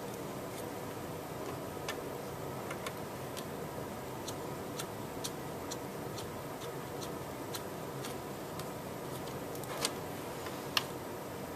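Faint light ticking, about two clicks a second, over a steady room hum, with two sharper clicks near the end.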